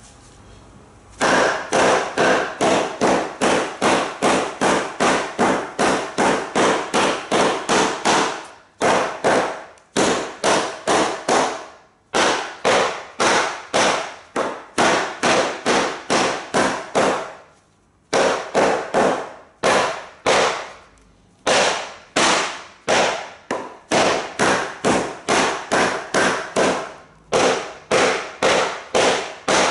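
A wooden baton striking the spine of a Japanese nata hatchet over and over to drive the blade in (batoning). Sharp knocks come about two to three a second, each ringing briefly, with a few short pauses between runs.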